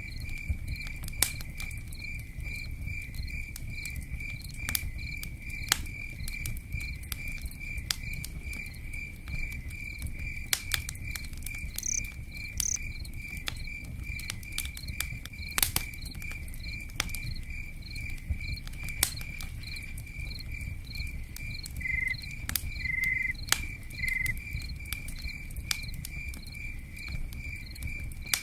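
A cricket chirping steadily, about two chirps a second, with a second cricket joining briefly near the end. Under it runs a low rumble with scattered sharp clicks and pops.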